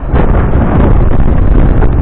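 Strong wind buffeting the microphone, a loud rumbling rush that dips briefly at the very start.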